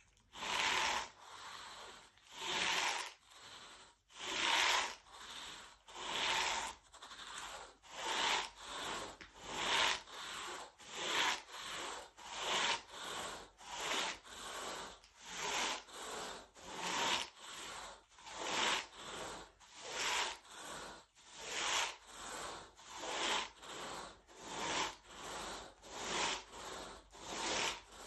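Carpet rake dragged back and forth through carpet pile in even, repeated strokes, a little more than one a second.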